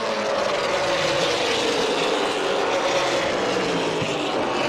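A pack of Super Late Model stock cars' V8 engines running at racing speed around a paved oval, a steady drone whose pitch wavers a little as the cars go through the turns.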